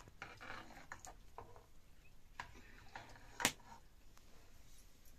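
Metal ladle stirring liquid in a metal pot over a wood fire: faint scraping and light clinks, with one sharper clink about three and a half seconds in.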